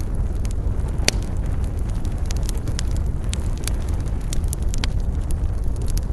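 Campfire burning: wood crackling with irregular sharp pops, the loudest about a second in, over a steady low rumble.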